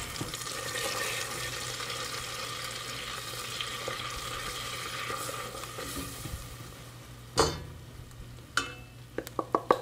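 Melted butter sizzling in a stainless steel saucepan as flour is stirred in with a silicone spatula to start a roux; the sizzle dies down after about seven seconds. Near the end come sharp taps, a measuring cup knocked against the pan a few times to empty out the last of the flour.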